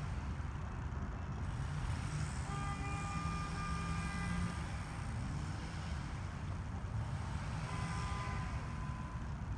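Steady low outdoor rumble, with a faint held tone sounding twice, each time for about two seconds.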